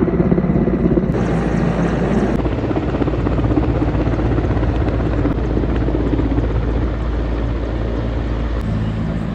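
Helicopter landing close by, its rotor blades chopping loud and fast over the engine noise.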